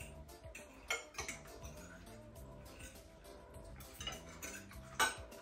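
Cutlery clinking and scraping on ceramic plates as people eat, with a sharper clink about a second in and another near the end. Soft background music runs underneath.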